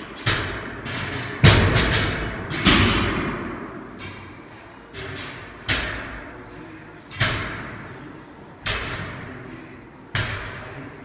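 Barbell with rubber bumper plates set down on a rubber gym floor on each deadlift rep: about seven heavy thuds, roughly one every second and a half with a short pause in the middle, each dying away in the large hall.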